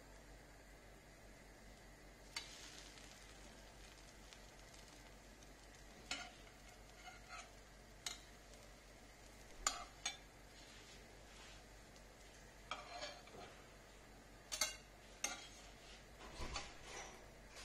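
Pancakes cooking on a flat nonstick pan: a faint sizzle, broken by scattered light taps and scrapes on the pan as the pancakes are flipped and lifted off.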